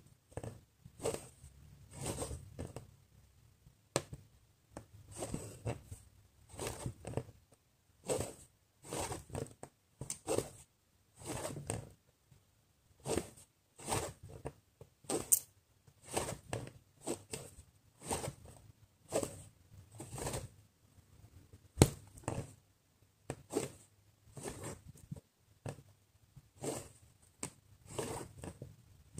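Needle and embroidery floss being pulled through cross-stitch fabric over and over, a short swish about once or twice a second, with fabric rustling. One sharp click a little past two thirds of the way through is the loudest sound.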